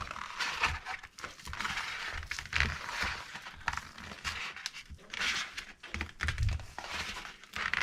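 Laser-cut cardboard being crunched and flexed by hand, crackling in repeated bouts with some dull knocks, to break the cardboard's memory so it holds a curve.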